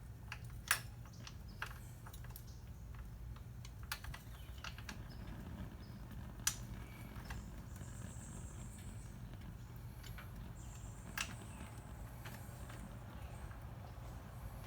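Metal parts of a motorcycle's rear wheel assembly handled by hand: scattered light clicks and taps, the sharpest about a second in and again about six and a half seconds in, over a steady low hum.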